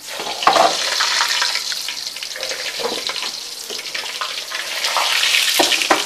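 Puri deep-frying in hot oil in a karahi, sizzling loudly and steadily, with a few sharp clicks and knocks of a metal wire skimmer and tongs against the pan.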